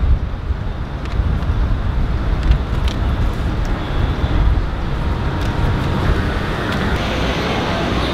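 City street traffic noise, with wind noise on the microphone.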